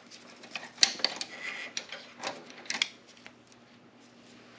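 A handful of light metallic clicks and clinks from a socket wrench and the loosened 12 mm fuel-tank bolt being handled, spread over the first three seconds or so.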